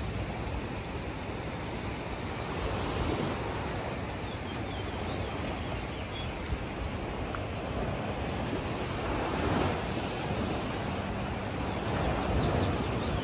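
Ocean surf and wind: a steady rush of waves with wind on the microphone, swelling a little louder about three quarters of the way through and again near the end.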